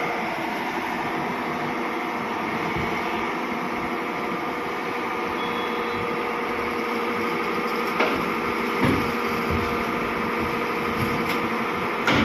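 Hyundai crawler excavator's diesel engine running steadily, with a few sharp knocks about eight, nine and twelve seconds in.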